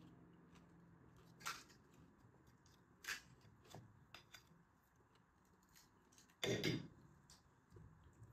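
Scattered light clicks and taps of a steel spoon in a steel bowl of potato filling, along with crisp puri shells being cracked open by hand. The loudest is a short cluster of clatter about six and a half seconds in.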